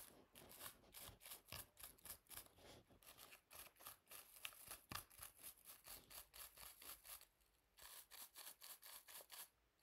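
Wooden-backed bristle hairbrush rubbed against the microphone in quick, short teasing strokes, several a second, the sound of backcombing hair. The sound is faint and pauses briefly about seven seconds in and again near the end.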